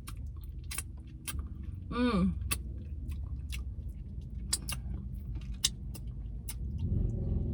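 Close-up chewing of fried chicken, with many irregular wet smacks and clicks, over a steady low vehicle rumble. A short vocal sound falling in pitch comes about two seconds in, and the low rumble grows louder near the end.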